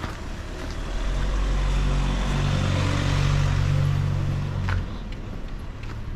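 A car driving past on the street. Its engine hum and tyre noise rise over the first second or so, hold, and drop away about a second before the end.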